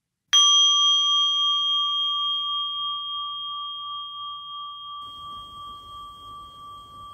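A meditation bell struck once, ringing a clear high tone with bright overtones that fades slowly with a gentle wavering.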